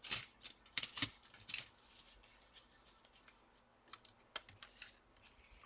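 Small sharp clicks and scrapes of hands and a tool working the laptop's battery connector to unplug it. There is a cluster of clicks in the first second and a half, then fainter scattered ticks.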